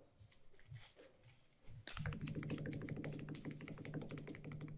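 Drumroll sound effect marking a prize draw: fast, even drum strokes over a steady low tone, starting about two seconds in and stopping near the end. It is preceded by faint handling sounds.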